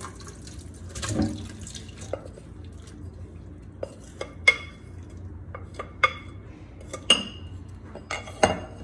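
Salted cucumber slices and their released water poured from a glass bowl into a stainless steel colander, with a wet splash about a second in. After that come several sharp, ringing clinks as a wooden spoon scrapes the last slices out and the glass bowl knocks against the colander.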